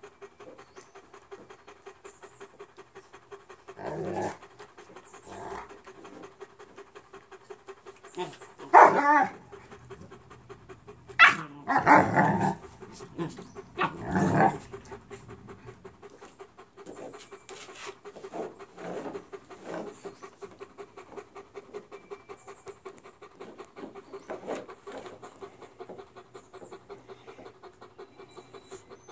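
Dogs at rough play: steady panting, about three breaths a second, broken by a few louder bursts of dog noise between about 9 and 15 seconds in, from a Leonberger wrestling with a Bernese mountain dog puppy.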